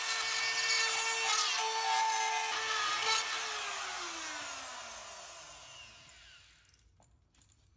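Rotary cutout tool with a spiral bit running at high speed, routing through drywall around an electrical box with a steady high whine and rasp. About three seconds in it is switched off, and the whine falls in pitch and fades as the bit spins down.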